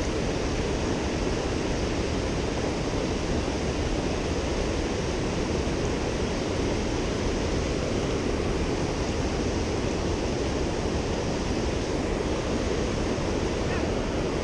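Mountain river water rushing over its bed, a steady, unbroken rush.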